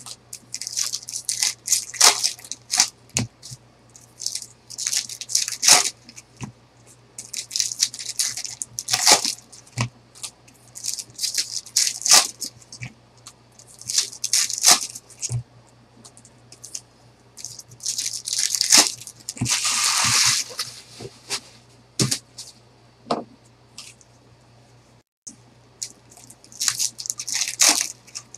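Foil trading-card pack wrappers crinkling and tearing open, and stacks of cards being flicked and shuffled by hand: repeated short rustles and clicks, with one longer tearing rustle about twenty seconds in.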